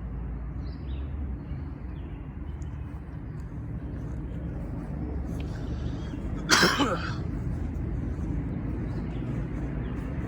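A single short cough about six and a half seconds in, over a steady low outdoor rumble.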